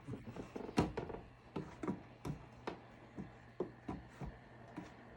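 A series of light, irregular knocks and clicks, as of things being handled and set straight by hand, over a faint steady hum. The loudest knock comes about a second in.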